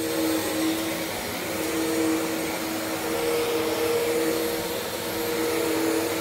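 Bissell CleanView Swivel Pet upright vacuum cleaner running steadily while being pushed over a rug: a steady motor hum over the rush of airflow.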